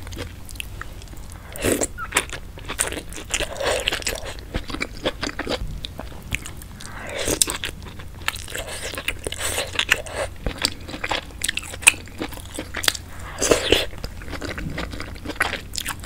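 Close-miked eating sounds: biting and chewing saucy seafood-boil food, including corn on the cob, with many short wet clicks and crunches.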